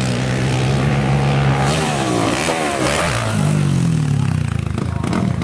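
Sport quad's engine revving as it rides across a dirt track. The pitch drops and then climbs again about two to three seconds in as the throttle is rolled off and back on.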